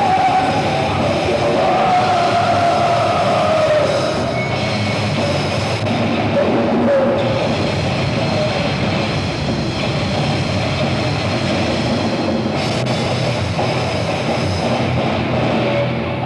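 Heavy metal band playing live with distorted guitars and drums, heard through a rough, heavily distorted amateur recording that turns the music into a dense wash.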